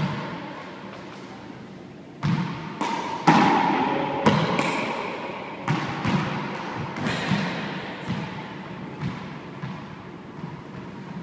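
Handball rally in an enclosed four-wall court: the small rubber ball smacking off gloved hands, walls and floor in about a dozen sharp, irregular hits, each ringing with the court's echo.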